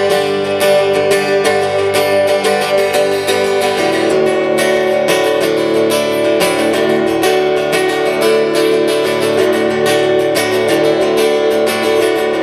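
Acoustic guitar strummed steadily in an instrumental passage of a song, changing chord about four seconds in.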